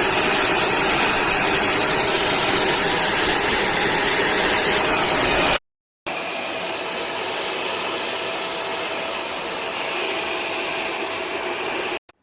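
QuickFix 20-litre 1600 W wet and dry vacuum cleaner motor running steadily with a whooshing airflow. It cuts off abruptly about halfway through, then runs again somewhat quieter.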